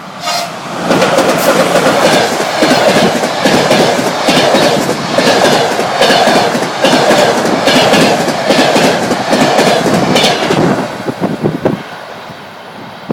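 Passenger train passing close by at speed, its wheels clattering in a quick, even rhythm over the rail joints. The clatter thins out and fades about eleven seconds in as the last carriages go by.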